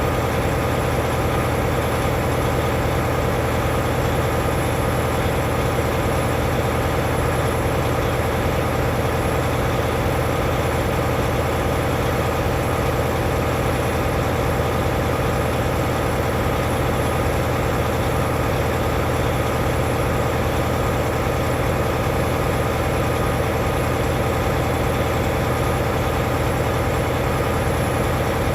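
Heavy truck diesel engine idling steadily, an even low rumble that does not change.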